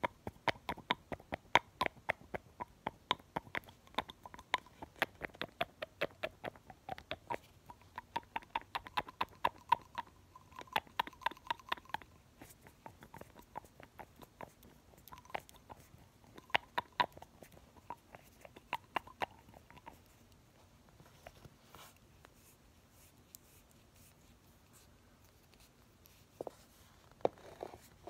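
Fingers working the cap and glass body of a nail polish bottle, making quick clicks and taps with a slight glassy ring. The clicks come thick and fast for about twelve seconds, thin out into short clusters, pause for several seconds, and a few handling sounds return near the end.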